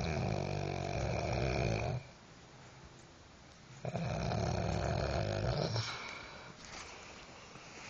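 Two long, loud snores, each about two seconds, with a rattling drone and a thin whistle over it. The second snore starts about four seconds in. Fainter breathing sounds follow it.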